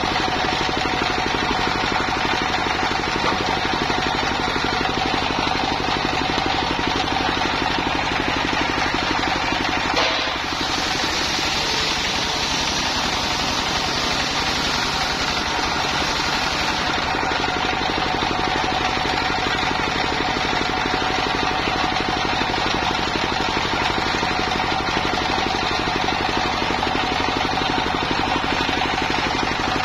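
Single-cylinder stationary diesel engine running steadily, driving a homemade circular sawmill, with a steady ring from the spinning saw over the engine's rapid chugging. About ten seconds in there is a knock, followed by several seconds of harsher hiss.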